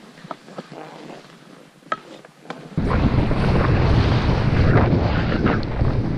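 Wind buffeting the microphone of a skier's body-mounted camera during a fast powder descent. It comes in suddenly and loud about three seconds in. Before that, a quieter hiss of skis through snow with a few small clicks.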